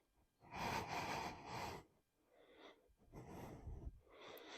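A person breathing audibly: several faint breaths in and out, each about a second long, with short pauses between them.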